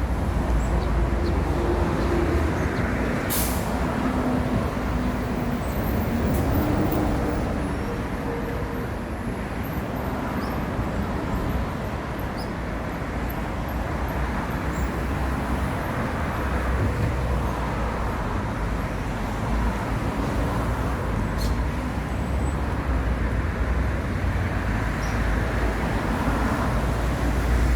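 City street traffic: vehicles running and passing, with a short sharp hiss about three seconds in.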